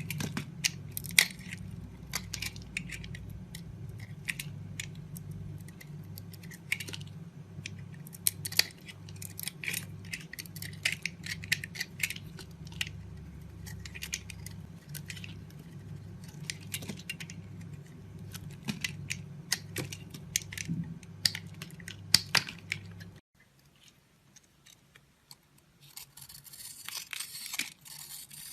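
Blade cutting into dry soap: a run of crisp scrapes and snapping clicks over a low steady hum. About 23 seconds in the sound cuts off abruptly, and a few seconds later a dense, fine crackling starts.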